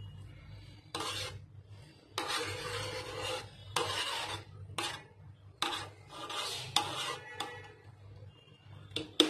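A metal spoon stirring and scraping grainy rice pulao against the side of a metal pot: a string of gritty scraping strokes, each under a second, with short pauses between.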